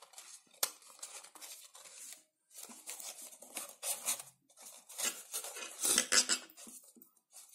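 Folded coloured-paper modules rustling and scraping as hands slot their flaps into one another to close up a paper cube, with a sharp tap about half a second in and a louder burst of rustling about six seconds in.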